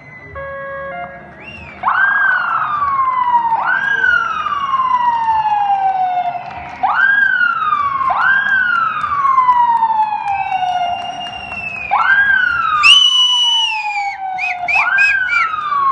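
Ambulance siren wailing, each note rising quickly and falling slowly, repeated every couple of seconds. Near the end it switches briefly to a high steady tone and a fast warble before the wail comes back.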